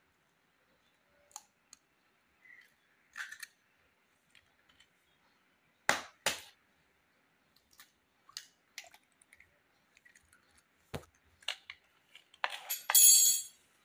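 Scattered sharp taps and clicks against a metal pan as eggs are broken into flour. There are two loud ones about six seconds in, and a longer clattering, ringing clink near the end.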